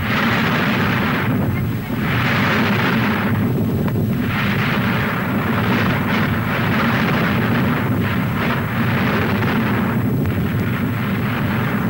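Gas venting from Mount Etna's small ash crater: a loud hissing that swells and eases in surges every two seconds or so, over a steady low rumble.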